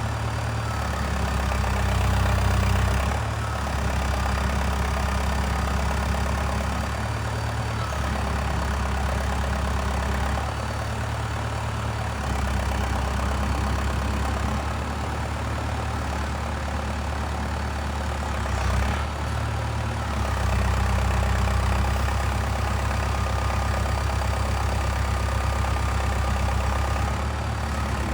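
Diesel engine of a Valtra 815 backhoe loader running, its note swelling and easing every few seconds as the load changes, with a thin whine coming and going above it.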